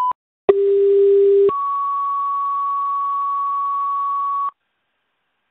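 Fire dispatch two-tone sequential page over the radio: a short beep, then a low tone held about a second, then a higher tone held about three seconds that cuts off. The tone pair sets off the pagers of the fire units being dispatched.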